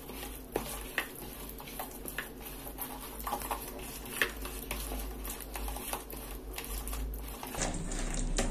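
A bare hand mixing thick, wet masala batter in a bowl: squelching strokes with irregular light clicks and taps against the bowl.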